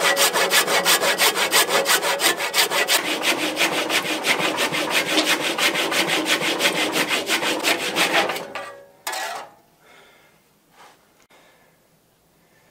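Handsaw cutting through the wood at the base of a turned bowl, with quick, even back-and-forth strokes. The sawing stops about two-thirds of the way in, followed by a single short knock and then faint handling.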